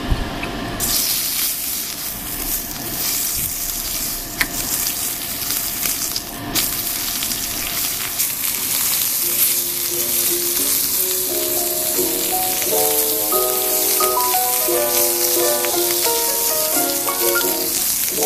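Slices of pork belly sizzling in a hot cast-iron skillet, the sizzle starting about a second in as the first piece goes into the pan. Background music with a simple melody comes in about halfway through.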